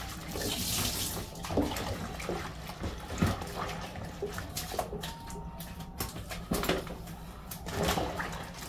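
Kitchen faucet running into a stainless steel sink during hand-rinsing, running for about a second at the start and again near the end. In between, water splashes and light knocks and clatters come from the sink.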